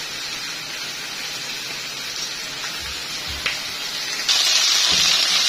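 Hot oil sizzling in a cooking pan: a steady low hiss, then a sudden much louder sizzle about four seconds in.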